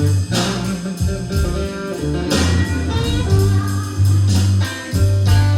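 Live blues band playing: an electric guitar fill between sung lines, over bass guitar and drums.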